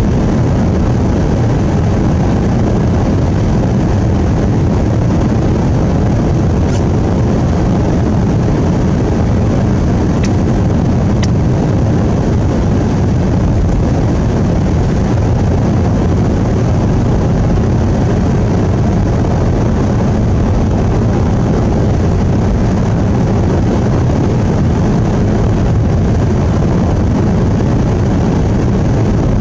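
Steady drone of a vehicle driving, heard from inside the cab: engine and tyre noise with no change in level.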